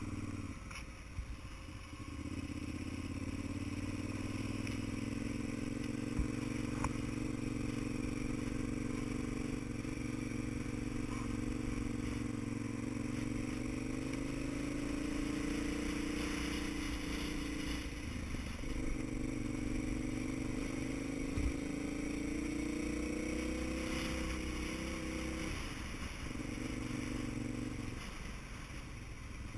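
Vehicle engine running under way down a road, its note drifting up and down in pitch. The note breaks off briefly three times: about a second in, past the middle, and near the end.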